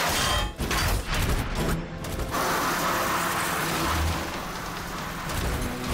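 Cartoon battle sound effects over background music: mechanical clanks and sharp impacts at first, then a long grinding skid of a robot vehicle's metal wheels in the middle, ending in a low thud.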